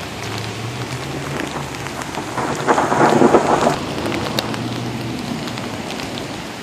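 Sleet pattering steadily on pavement and parked cars, with scattered sharp ticks of ice pellets striking; a louder rushing swell rises and falls about two and a half to four seconds in, over a faint low hum that fades out about five seconds in.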